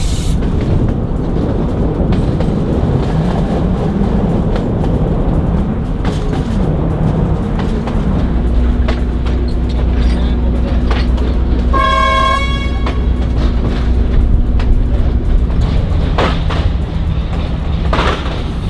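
Diesel passenger train running, a steady rumble with wind from leaning out of the carriage door. About twelve seconds in, the train's horn gives one short toot of about a second as it nears a station.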